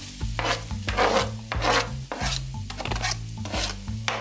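Knife blade scraping diced onion across a plastic cutting board into a frying pan: a run of short scraping strokes, roughly two a second. Background music with a steady bass line plays underneath.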